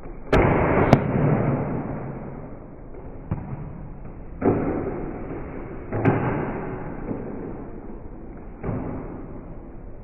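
Nerf blasters firing foam darts: a run of sudden pops, each trailing off in a short whoosh. The loudest two come close together about a second in, and further shots follow near the middle and near the end.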